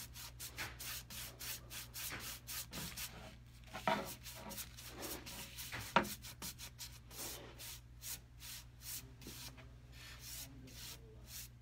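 Paintbrush swept back and forth over a wooden cabinet's surface: a steady run of short scratchy strokes, about three a second, with a sharper knock about six seconds in.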